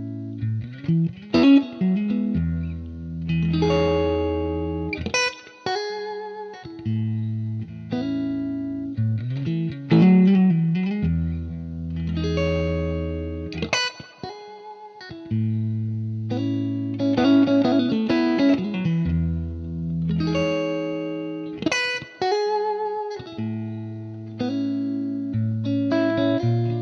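Background music led by an electric guitar with effects, playing held notes and picked phrases.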